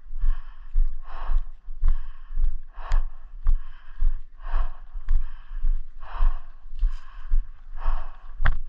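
A person breathing hard and fast, a heavy breathy exhale roughly once a second, over regular low thuds.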